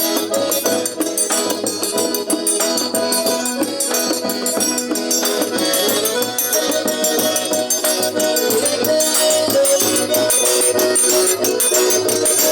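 Accordion (sanfona) playing a folk tune in held, flowing notes, over fast rattling hand percussion and a low, steady beat.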